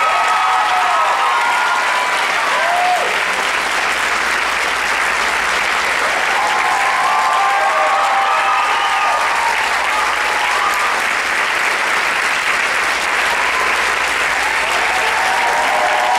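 Large audience clapping steadily, with cheering voices rising above the applause a few times.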